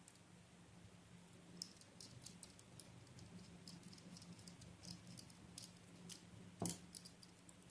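Faint scattered clicks of small metal fan-mounting hardware (clamp, bolt) being handled, with one louder knock about two thirds of the way through, over a low steady hum.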